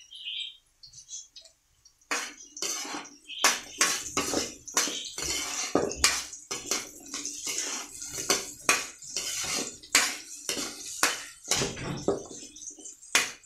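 Metal spatula scraping against a pan as it stirs and turns diced sweet potato frying in oil, a quick, irregular run of scrapes starting about two seconds in, over a steady sizzle.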